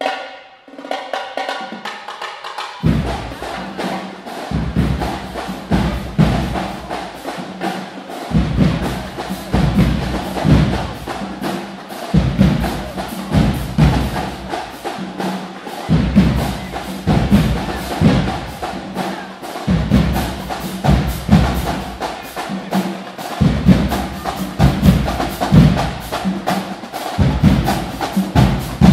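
Marching drumline playing live: rapid, dense snare strokes and stick clicks, joined about three seconds in by heavy bass drum hits that come in bursts.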